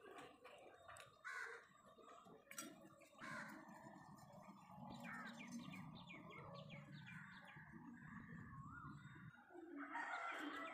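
Faint bird calls: crows cawing and small birds chirping, with a run of quick falling chirps in the middle. A few light clicks and a low rumble that stops about nine seconds in lie underneath.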